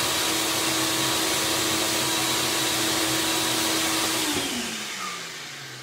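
Ninja blender running steadily at full speed, blending a sauce, then switched off about four seconds in, its motor pitch falling as the blade spins down.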